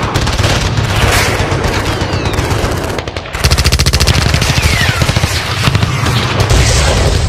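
War-film sound effect of rapid automatic gunfire, with a few short falling whistles. The firing dips briefly about three seconds in, then comes back denser.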